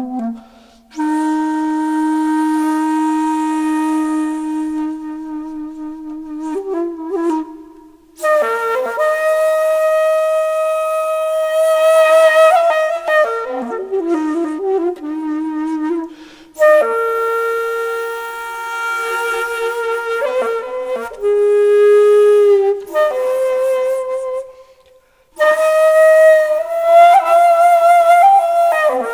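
Music played by a solo wind instrument. It holds long notes that bend and slide in pitch, in phrases split by short breaths or breaks.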